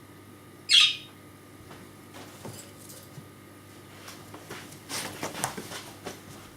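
Pet budgerigar giving one short, loud, shrill screech about a second in, its demanding call for attention. About five seconds in comes a run of light clinks and rattles.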